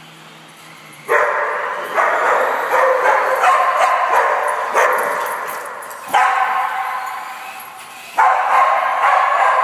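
Dogs barking in a string of barks starting about a second in, each bark echoing and dying away slowly off the bare concrete of an underground parking garage.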